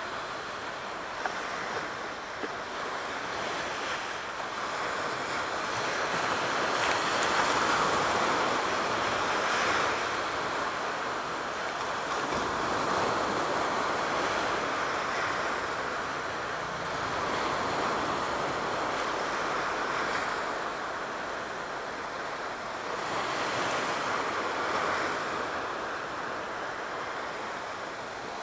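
Aegean Sea waves washing in, a steady surf that swells and eases in slow surges every few seconds.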